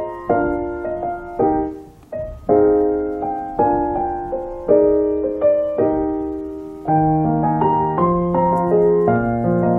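Background piano music: a gentle melody of single struck notes that ring and fade, with lower bass notes joining about seven seconds in.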